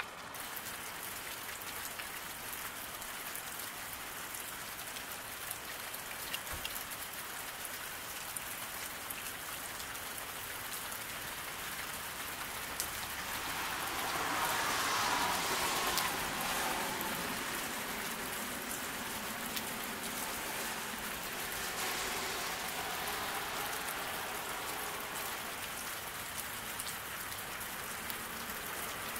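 Steady rain falling on a road and pavement, an even hiss with scattered drip ticks. About halfway through the hiss swells louder for a few seconds, then settles back.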